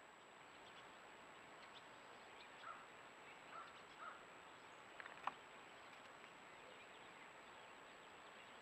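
Near silence: the steady hiss of a trail camera's recording with a faint high whine, a few faint short chirps a few seconds in and a single sharp tick a little after.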